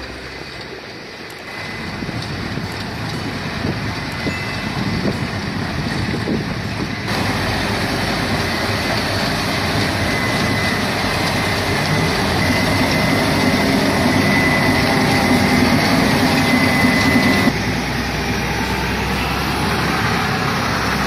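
A sugarcane harvester and the tractor hauling beside it running hard while cutting cane, a dense steady din of diesel engines and machinery. The sound shifts abruptly a few times.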